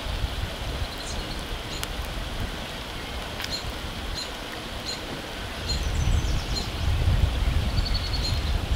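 Outdoor forest ambience: short high chirps repeat roughly once a second over a low rumble, which grows louder about six seconds in. A couple of sharp clicks come in the first half.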